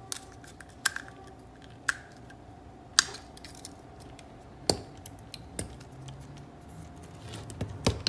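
Scattered light clicks and taps of small plastic pilot lamps, wires and a screwdriver being handled and set down on a wooden board, about six in all, over a faint steady hum.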